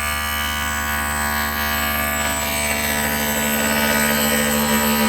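CNC machine running: a steady mechanical hum with several constant whining tones, growing slightly louder toward the end.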